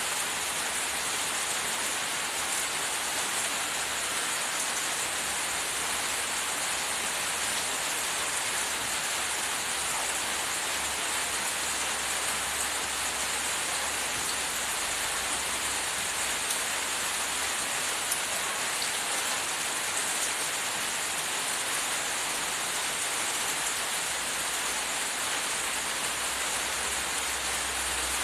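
A steady, even rain-like hiss with a few faint scattered ticks, unchanging throughout.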